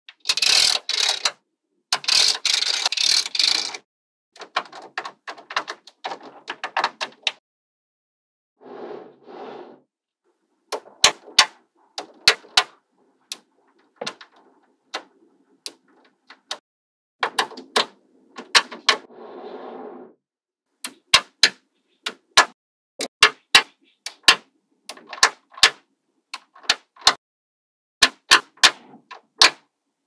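Small metal magnetic balls clicking as they snap onto a slab of magnetic balls. Near the start come two dense rattling bursts as a strip of balls is pressed into place; later, many sharp single clicks in quick groups as balls are added one at a time.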